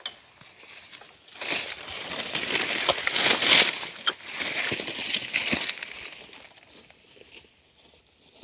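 Leaves, grass and dry palm fronds rustling and crackling as someone pushes through dense undergrowth, the foliage brushing close to the microphone. It starts about a second in, is loudest in the middle, and fades away near the end.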